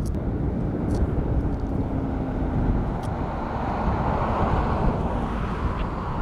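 Wind buffeting the microphone over a low, steady engine rumble with a faint hum.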